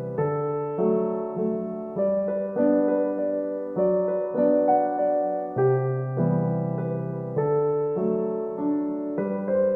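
Background piano music: a slow, gentle melody over sustained chords that change every couple of seconds.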